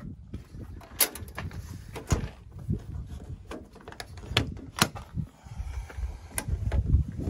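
Several sharp clicks and knocks, about five over a few seconds, over a low rumble that grows louder near the end.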